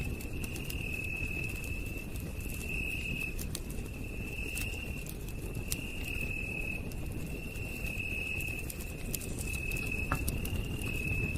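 Campfire burning with sharp crackles and pops over a low rumble of flame, while a night insect trills on one continuous high note that swells and fades every second or two.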